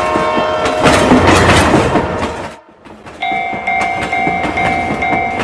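A train horn sounds and stops about a second in, followed by the loud rumble and clatter of a passing train, which cuts off abruptly. After a brief lull, the steady repeating ding of a railroad crossing alarm starts.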